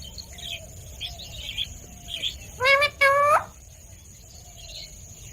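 Indian ringneck parrot calling: two loud, rising calls in quick succession about halfway through, with fainter chirps before them.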